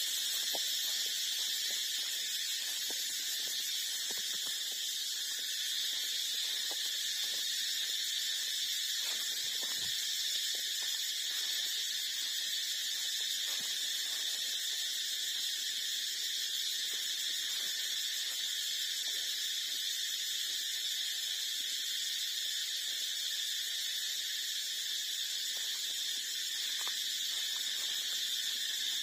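Steady, unbroken high-pitched insect chorus, like cicadas or crickets, with faint small smacking ticks of puppies suckling underneath.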